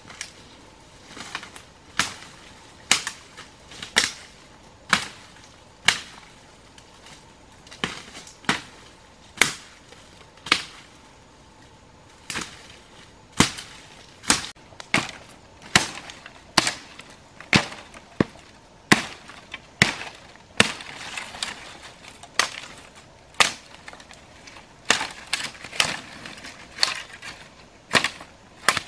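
Machete chopping into branches and saplings: a series of sharp strikes, about one a second at first, then faster and more irregular in the second half.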